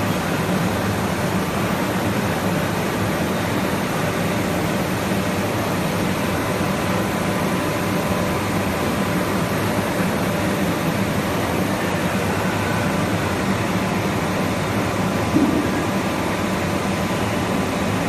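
CNC milling machine running through its program: a steady mechanical hum with a thin, constant whine, and a single short click about fifteen seconds in.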